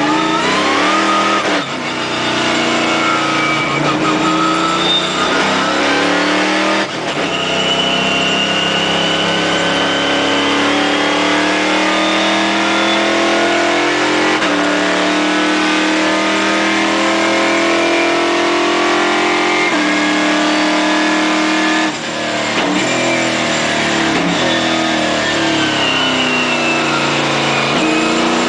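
Stock Car Brasil race car's V8 engine heard from inside the cabin at full throttle, its pitch climbing and then dropping sharply at each upshift, about four times. Near the end the revs fall in steps under braking and downshifts, then climb again as it accelerates out of the corner.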